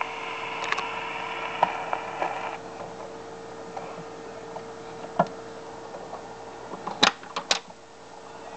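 Steel needle of a Victor VV-50 portable Victrola running in the run-out groove of a 78 rpm record after the song ends: surface hiss with light clicks, cut off about two and a half seconds in as the reproducer is lifted. A few sharp metal clicks near the end as the tone arm is set back down.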